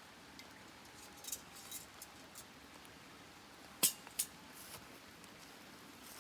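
Wood campfire crackling, with scattered sharp pops and two louder snaps a little past the middle.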